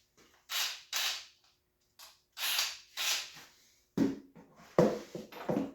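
Hand tools working on a dirt bike: a few short rasping strokes, like a socket ratchet turning, then from about four seconds in a run of sharp metallic clinks and clanks.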